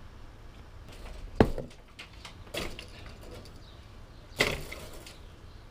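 Cinderblock and concrete cracking and knocking under a mini excavator's push: three sharp cracks, the loudest about a second and a half in, another near the middle and one near the end. They sit over the low, steady running of the excavator's engine.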